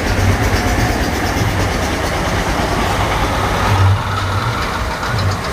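Strong wind buffeting the microphone: a steady, loud rumbling rush with no clear breaks.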